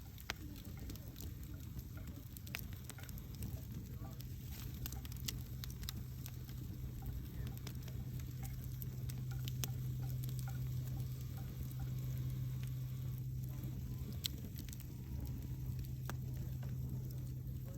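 Wood campfire crackling, with scattered sharp pops over a low rumble. A steady low hum sits underneath, swelling from about three seconds in and fading near the end.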